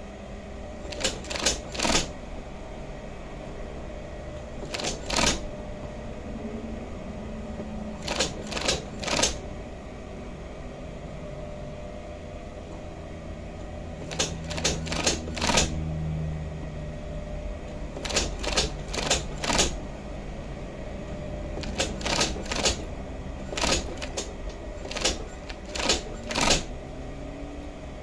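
Union Special 35800 industrial sewing machine stitching denim in short runs: clusters of two to four sharp clicks every few seconds over a steady motor hum.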